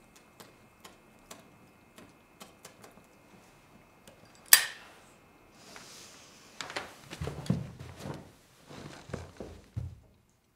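Light clicks and taps, then a single sharp crack about four and a half seconds in, followed by a run of irregular knocks and thuds.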